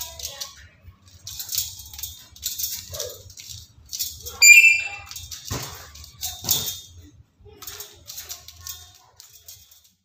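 Black-capped lory feeding from a plastic cup hung on a small chain: a series of short, raspy scraping and rattling sounds, with two sharper knocks about five and a half and six and a half seconds in. A brief whistled squeak about four and a half seconds in is the loudest sound.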